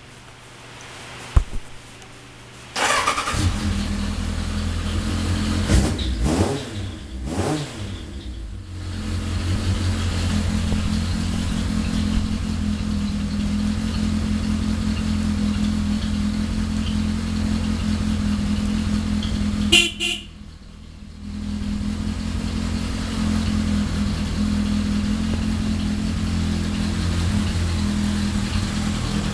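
Kawasaki Zephyr 1100's air-cooled inline-four with a Tech Surf aftermarket exhaust is started about three seconds in, blipped a few times, then idles steadily. About twenty seconds in, the horn beeps once briefly.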